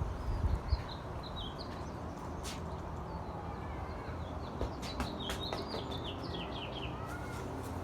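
Small birds chirping in two runs of short, quick, falling notes, the second run longer, over a steady low background rumble.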